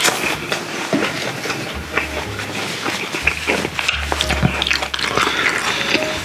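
Close-miked chewing of a mouthful of food, wet mouth clicks and squelches coming in quick, irregular succession.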